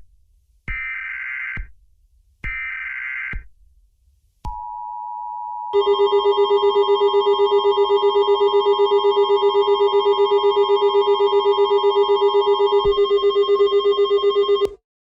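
Emergency Alert System tones: short bursts of digital header data, each about a second long, then, about four and a half seconds in, the steady two-tone attention signal, joined a second later by a louder rapidly pulsing alarm tone. The two-tone signal stops shortly before the pulsing tone cuts off near the end.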